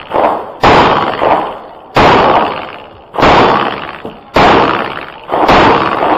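Five pistol shots from a 1911-style handgun in slow, evenly paced fire, about one every 1.2 seconds. Each shot rings out with a long echo off the range's walls and roof.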